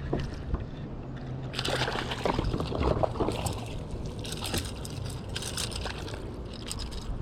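Water sloshing and splashing around a kayak, in irregular splashy bursts that start about a second and a half in and run on, over a faint low hum.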